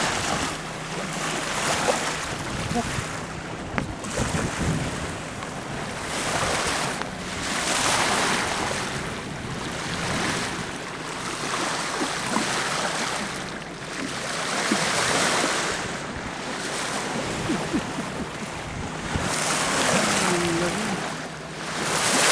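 Sea water rushing along the hull of a sailing boat under way, swelling and fading every two to three seconds, with wind buffeting the microphone.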